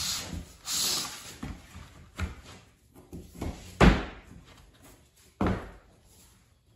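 Click-lock vinyl floor planks scraping as they are slid out of their cardboard carton, then several knocks and clacks as planks are handled and set down on the floor, the loudest about four seconds in.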